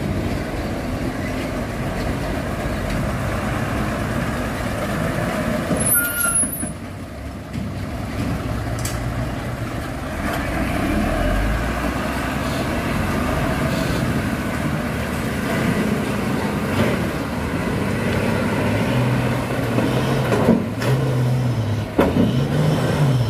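Diesel engine of a loaded tanker truck running under load as it crawls and lurches through deep potholes, revving up and down near the end. A short air-brake hiss comes about six seconds in, and a few knocks near the end.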